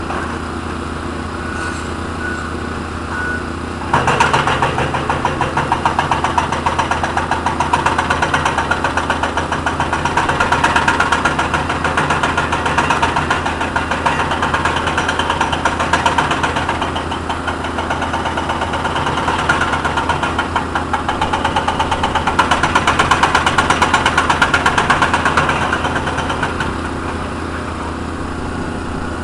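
Cat 320 excavator's diesel engine running steadily, with its hydraulic breaker hammer pounding in a rapid, continuous rattle. The hammering starts about four seconds in and stops a few seconds before the end.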